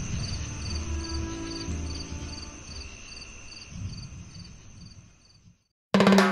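Night-time crickets chirping all around, a steady high trill with a pulsed chirp about two to three times a second, fading out about five seconds in. Music with drums starts suddenly near the end.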